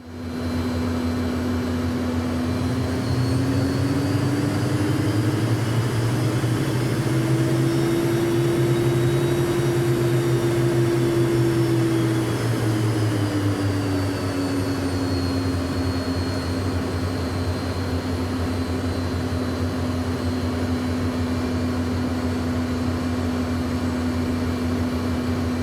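Jet aircraft engines running steadily, a deep hum under a droning tone and a faint high whine. The pitch rises a few seconds in, holds, and settles back down about halfway through, as the engines spool up and back.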